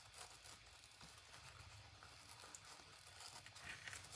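Faint rustling and soft ticks of ribbon and paper card being handled as a small bow is tied on a paper box, a little busier near the end.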